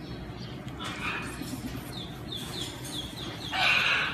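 Baby baboon being tickled, giving a quick run of short, high, falling chirps, about four a second, then a louder, harsher cry near the end.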